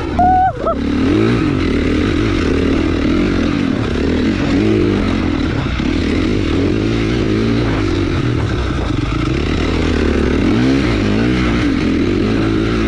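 Dirt bike engine running loudly, its revs rising and falling as it is ridden. A brief high rising squeal sounds about half a second in.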